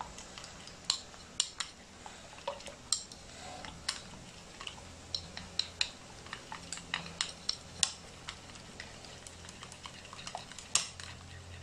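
A metal fork stirring wet tempura batter of cornstarch and icy water in a bowl, with irregular clicks and clinks of the fork against the bowl.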